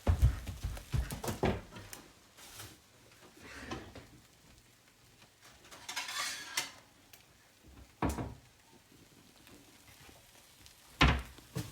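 Kitchen dishes and cookware clattering: a flurry of clinks and knocks, then single knocks spread apart, the loudest near the end, as a plate and pan are handled to serve the eggs.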